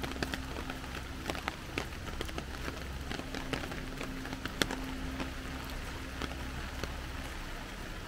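Steady rain falling, a soft hiss with scattered drops ticking, over a low steady hum that stops shortly before the end.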